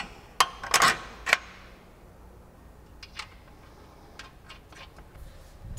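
Hand-fitting of a billet aluminium radius rod into its hub mount: sharp metal clicks and knocks as the rod end and hardware are wiggled into line. Three loud knocks come within the first second and a half, then lighter, scattered taps follow.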